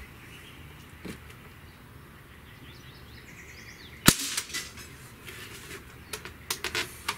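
A single shot from an Umarex Ruger 10/22 CO2-powered .177 air rifle: one sharp crack about four seconds in, followed by a few light clicks.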